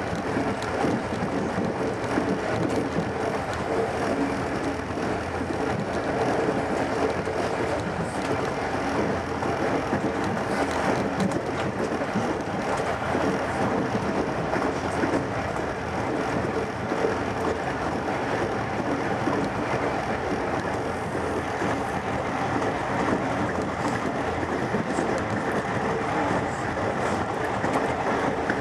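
Steady rumble of a moving train, its wheels running on the rails, with a faint steady hum underneath.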